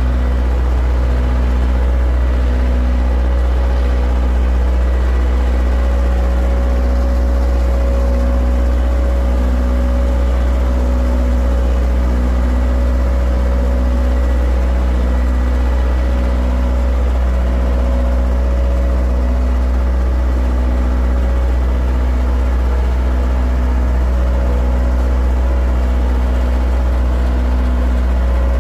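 A heavy engine running steadily, with a deep rumble and a faint pulse repeating about once a second.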